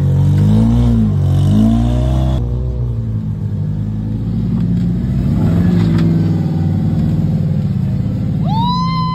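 Rock-crawler buggy engine revving up and down about once a second while crawling over rocks. After a cut, a buggy's engine runs steadily under load as it climbs a rock ledge. Near the end comes a brief high-pitched sound that rises and falls once.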